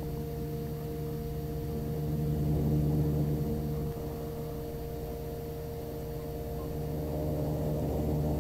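Engines of a small commuter plane heard inside the cabin: a steady hum of a few fixed tones over a low rumble, swelling slightly twice.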